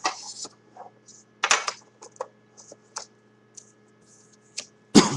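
Hands handling a trading-card box and its contents, lifting out the card pack and checklist: scattered short rustles and light clicks, with a sharper knock about a second and a half in and another just before the end.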